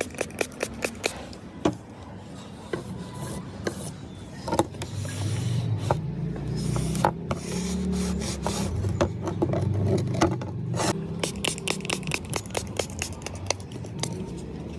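A knife blade being worked by hand with rapid, repeated scraping strokes, about three to four a second. A louder, steadier low rumble joins in the middle and fades before the quick strokes return near the end.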